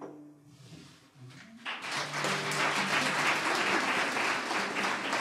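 The last chord of the song dies away, and about a second and a half in an audience starts applauding, the applause steady to the end.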